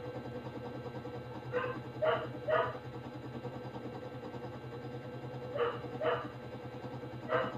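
A dog barking, about six short barks in three groups, over a steady low hum.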